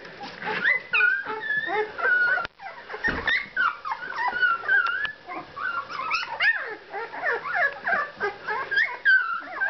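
A litter of young golden retriever puppies whining and crying: many short, high cries rising and falling and overlapping, with a brief lull about two and a half seconds in.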